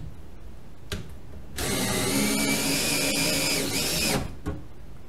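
Cordless drill, set on its clutch setting, driving a self-tapping screw into a steel mounting bracket. The motor runs steadily for about two and a half seconds, changes pitch just before it stops, and there is a click before and after the run.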